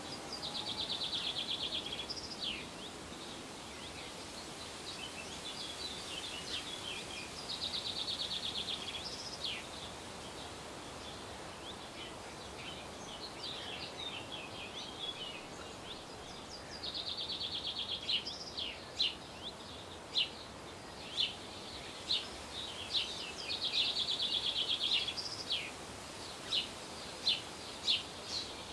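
Birds singing over a steady background hiss: a buzzy trilled phrase of about a second and a half comes back four times, with short falling chirps between. In the second half, sharp single chirps come about once a second.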